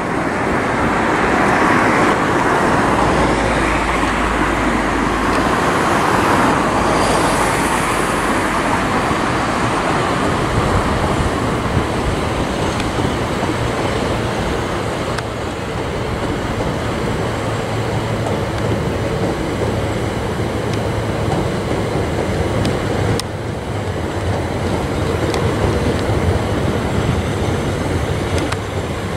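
A Gatwick Express Class 387 Electrostar electric multiple unit running past on the tracks below. It makes a steady rumble of wheels on rail and hum of running gear, somewhat louder in the first ten seconds or so.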